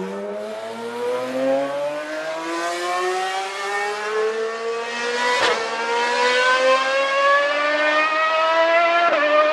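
Racing car engine accelerating, its pitch rising slowly and steadily, with brief dips about five and a half and nine seconds in as it shifts gear.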